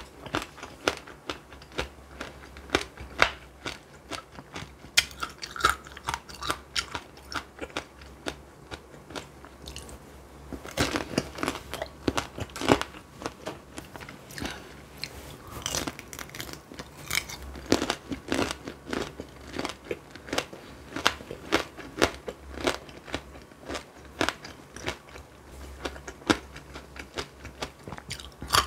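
Tanghulu being bitten and chewed close up: the hard sugar-candy shell cracks and crunches in many sharp, irregular snaps, mixed with wet chewing of the fruit inside.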